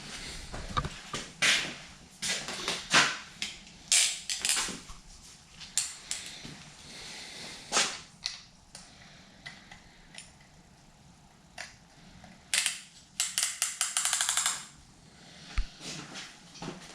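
Scattered clicks and knocks of tools and metal engine parts being handled on a workbench, with a quick run of rapid clicks about thirteen seconds in.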